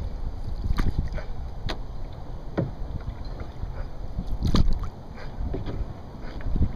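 Aluminum canoe being paddled on a lake: a string of sharp, irregular splashes and knocks from the paddle and water against the hull over a low rumble, the loudest about four and a half seconds in.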